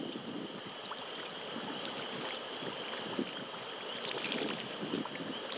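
Water from a drinking fountain's spout running and splashing into its stainless steel basin while a man drinks from it. A thin steady high whine runs underneath.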